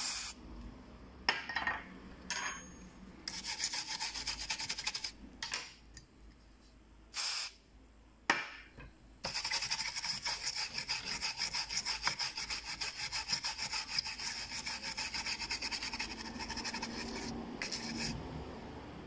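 A brush scrubbing a laptop motherboard, scratching back and forth in quick strokes a few times a second. It comes in short bursts at first, then runs steadily from about halfway through until shortly before the end.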